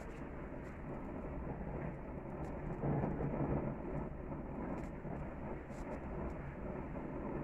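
Gas grill burners running under a tri-tip: a steady rush of flame with faint crackles of fat, swelling briefly about three seconds in.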